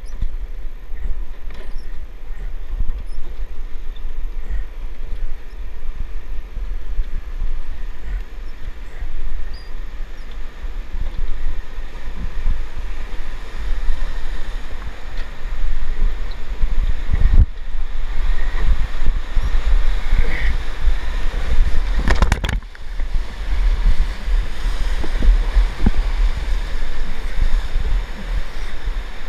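Whitewater rapid rushing around a river raft, heard through a boat-mounted camera microphone, with heavy low rumble from wind and water buffeting the mic. The water grows louder as the raft enters the waves, and there are two sudden thumps past the middle.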